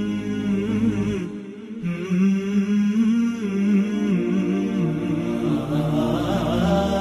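Outro music: a voice chanting a slow, wavering melody over a low hum, breaking off briefly about a second in.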